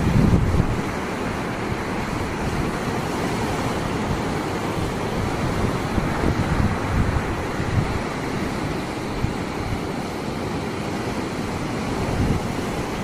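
Storm surf on the Atlantic breaking and washing in a bay, a steady loud rush of water, with wind buffeting the microphone in gusts.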